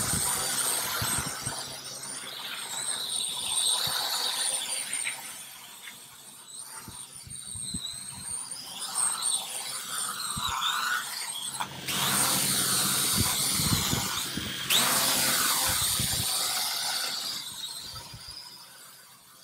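Supertoy E88 mini quadcopter's small motors and propellers whining in flight, the high pitch wavering up and down as it manoeuvres low over the ground. A louder rushing noise takes over for about three seconds, twelve seconds in.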